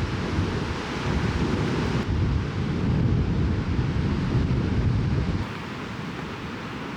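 Wind buffeting the microphone: a steady rushing noise with a heavy, fluttering low rumble that eases a little about five seconds in.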